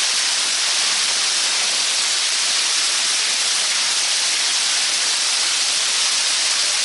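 Waterfall falling inside a cave: a loud, steady rush of water with no breaks.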